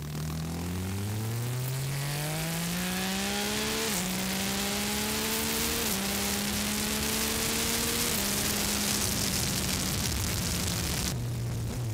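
Yamaha Tracer 900 GT's three-cylinder engine, through an Akrapovic exhaust, pulling away from a stop and accelerating. Engine pitch climbs and drops back at each of three upshifts, about four, six and eight seconds in, while wind rush over the rider grows with speed.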